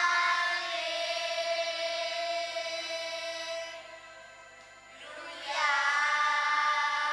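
Children's choir singing: a long held note, a brief lull about four seconds in, then the next phrase begins.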